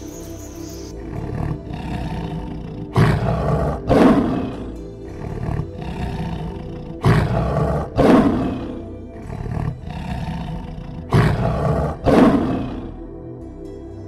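Male lion roaring in three bouts, each of two loud roars about a second apart, with quieter, shorter calls between the bouts.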